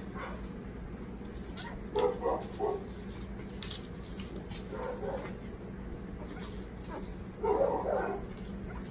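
Retriever puppies yipping and whimpering in short bursts: one around two seconds in, a brief one around five seconds, and a longer, louder one near the end.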